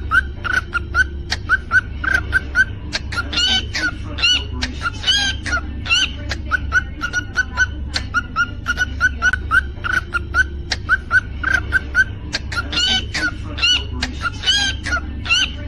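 Cockatiel chirping rapidly, about four short chirps a second, broken twice by longer rising, warbling whistled phrases.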